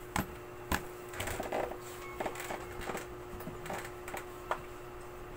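Marker pen writing a number on a white writing surface: a run of short scratchy strokes with a few sharp taps, over a faint steady hum.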